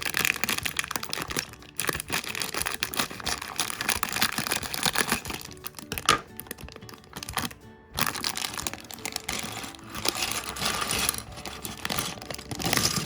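A plastic bag of LEGO pieces being torn open and crinkled in the hands, with brief pauses, over background music.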